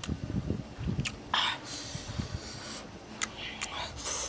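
Close-up eating sounds: wet lip smacks and mouth clicks while chewing, with a few short sucking noises as food is taken from the fingers.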